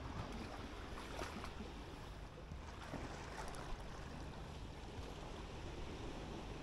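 Calm sea water lapping and washing against granite boulders at the shoreline, over a steady low rumble, with a few faint splashing ticks.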